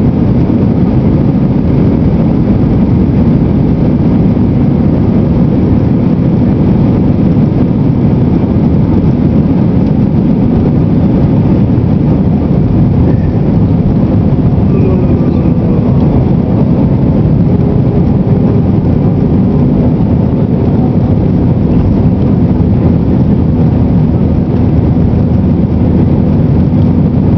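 Airbus A320's twin jet engines at take-off thrust, heard from inside the cabin: a loud, steady, low-pitched noise through the take-off run, lift-off and climb-out.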